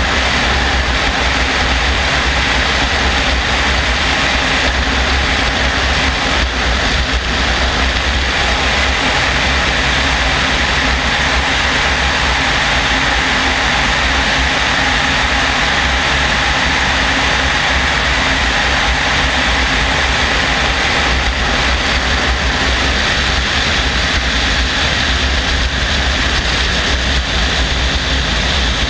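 Helicopter in level flight heard from a camera mounted outside the aircraft: steady, loud rotor and engine noise with a deep low rumble and wind rushing over the microphone.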